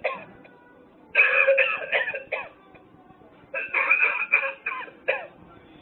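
Novelty coughing ashtray playing its recorded cough, the reminder it gives a smoker about his lungs when he goes to flick ash. Two fits of several coughs each, about a second and a half long, one starting about a second in and the other about three and a half seconds in.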